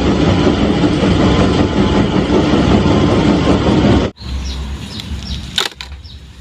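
Loud, dense crackling and crunching noise over a steady low hum, cutting off abruptly about four seconds in; quieter outdoor background with short bird chirps and a few clicks follows.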